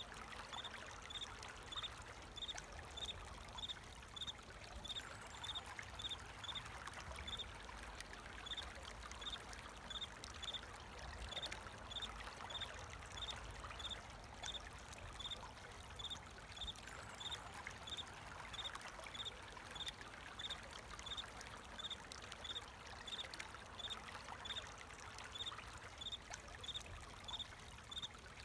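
Flowing water trickling steadily, with a cricket chirping over it in an even, high-pitched rhythm of about three chirps every two seconds.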